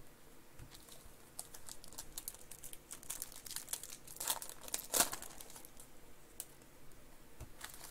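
Foil trading-card pack wrappers crinkling in the hands as the packs are opened, a run of faint scattered crackles with two sharper ones about four and five seconds in.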